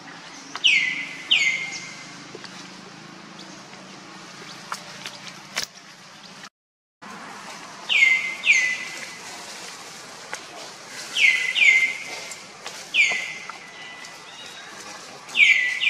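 High, whistle-like animal calls, each sweeping down in pitch and settling at the bottom, mostly in pairs about half a second apart, repeated five times over a steady outdoor hiss. The sound cuts out completely for about half a second around six and a half seconds in.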